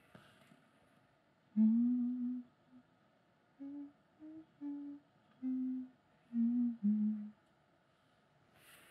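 A person humming a slow, low tune of about eight separate held notes, starting about a second and a half in and stopping shortly after seven seconds.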